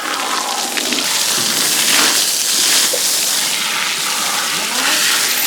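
Steady rushing and splashing of water.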